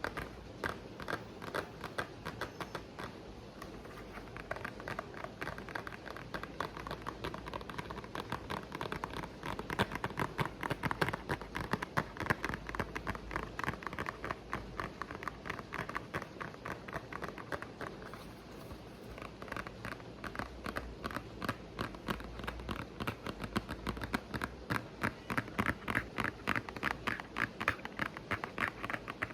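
ASMR tapping: rapid, continuous taps, about five a second, over steady rain. The taps get sharper and brighter about two-thirds of the way through.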